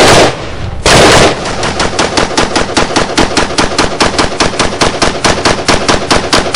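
Gilboa Silver Shadow M4-style rifle firing: two loud single shots, then a rapid string of shots for about five seconds.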